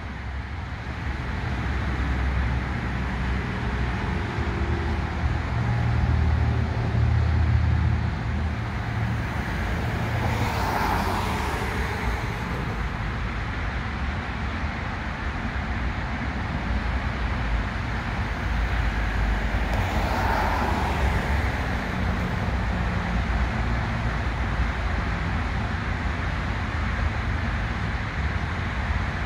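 Road traffic: a steady low rumble of passing cars, with two vehicles going by close, one about ten seconds in and another about twenty seconds in, each swelling and fading.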